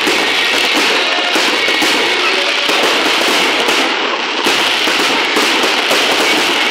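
Fireworks bursting in a dense, continuous barrage of crackling and popping, with many sharp reports packed closely together and no pause.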